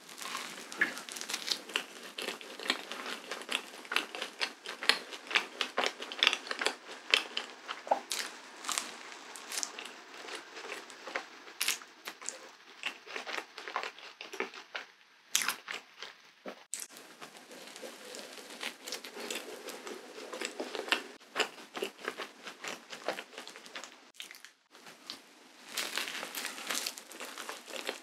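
Close-miked eating of a cream-filled waffle: crisp waffle crust bitten and chewed, with many small irregular crackles and crunches mixed with soft, wet mouth sounds. There are two short lulls, just after the middle and near the end.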